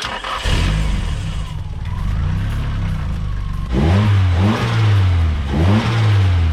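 Nissan SR20DET turbocharged four-cylinder idling, then revved twice in quick blips, at about four and six seconds in. It is being run to check for a rattle that the owner suspects is an exhaust leak at the manifold-to-head joint.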